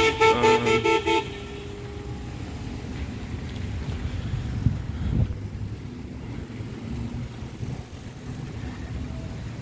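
A car horn sounds in a rapid series of short toots during the first second or so, then gives way to a steady low rumble of vehicles in a car park.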